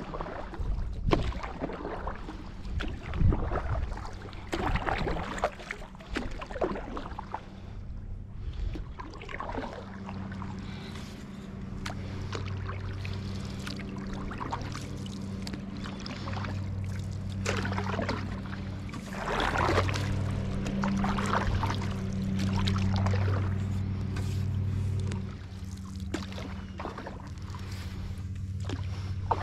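Canoe paddle strokes and water dripping and splashing against the hull. About a third of the way in, a steady low hum of unknown source joins them and drops away near the end.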